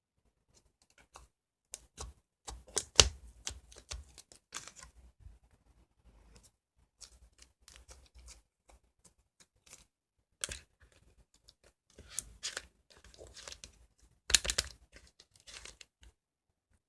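Slime being handled: irregular sticky crackling and clicking, loudest about three seconds in and again near the end.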